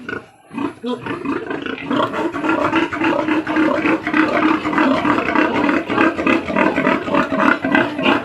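Many pigs squealing together in a loud, continuous clamour that builds from about two seconds in: pigs excited at feeding time.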